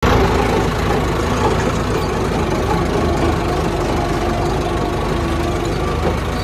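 A tractor's diesel engine running steadily as it drives slowly, heard up close from the driver's seat: an even, fast engine beat with no change in speed.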